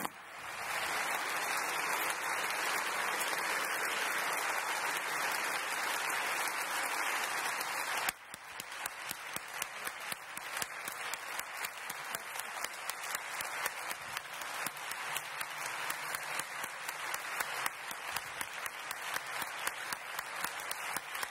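A hall audience applauding: dense, full applause that drops suddenly about eight seconds in to thinner applause in which single claps stand out.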